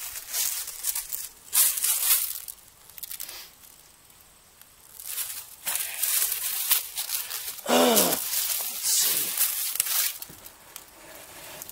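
Irregular bursts of rustling, scratchy noise, with one short sound falling in pitch a little before eight seconds in.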